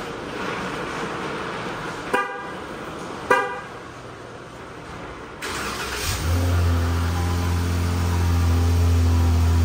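Car horn chirps twice, about a second apart, as a Dodge Charger is remote-started from its key fob; a few seconds later the engine starts and settles into a steady idle.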